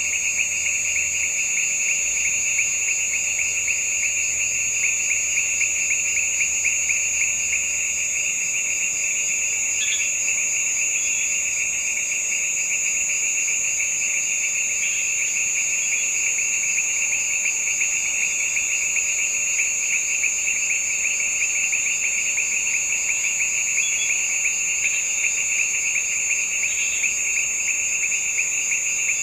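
Dense, steady chorus of insects trilling, one fast pulsing trill over a higher continuous whine, with a few faint short chirps here and there.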